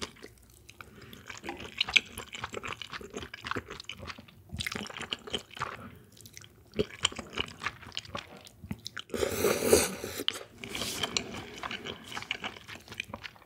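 Close-miked wet chewing and mouth sounds of eating cold soybean-milk noodle soup: many small clicks and smacks, with a louder slurp lasting over a second about nine seconds in.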